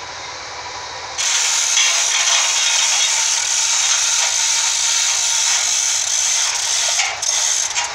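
Power saw cutting timber: a loud, steady high hiss that starts abruptly about a second in and runs on, with brief dips near the end.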